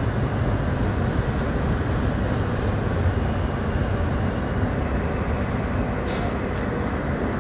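Interior of an R160A subway car running on elevated track and easing into a station: a steady low rumble of wheels and running gear that eases off a little in the second half.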